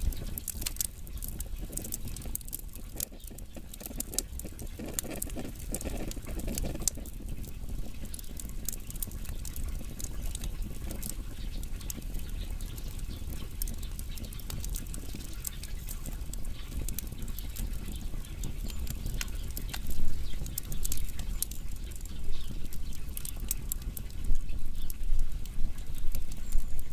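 Wood fire burning: many small crackles and snaps over a low rumble of flame, with louder pops near the end.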